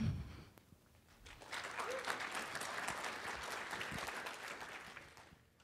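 Audience applauding, starting a little over a second in and fading out near the end.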